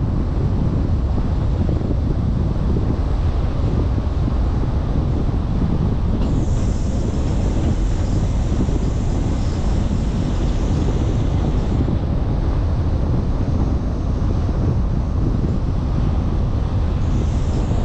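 Car on the move as heard through a dashcam: a steady, loud low rumble of road and wind noise. A thin high hiss comes in about six seconds in, holds for about five seconds, and returns briefly near the end.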